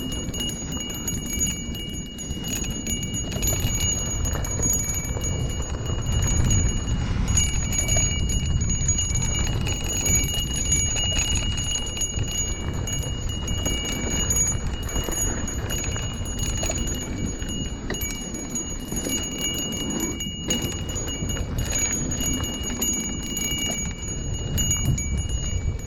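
Handlebar bell ringing on and off throughout with a steady high ring, over low rumbling wind and road noise from riding.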